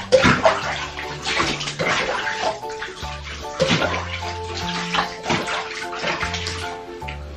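Water poured from a plastic cup over a cat sitting in a bathtub, splashing into the tub again and again as the cat is rinsed, with background music.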